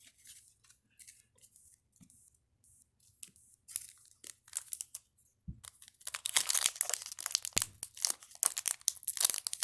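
A foil trading-card booster pack wrapper crinkling and tearing as it is pulled open, dense and loud from about six seconds in. Before that there are only light clicks and rustles of cards being handled.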